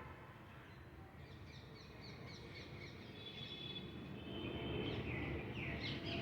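Low rumble of a passing train, with a run of short high chirps and then falling high squeals over it near the end.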